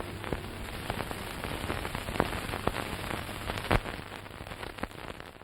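Artificial rain from film-set rain towers falling: a steady patter with scattered sharper drop hits, one louder about two-thirds of the way in, fading out near the end.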